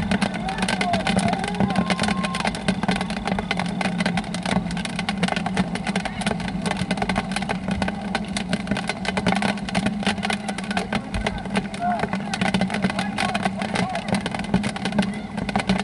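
Outdoor sports-field ambience: distant shouts from players and spectators over dense crackling noise on the microphone and a steady low hum.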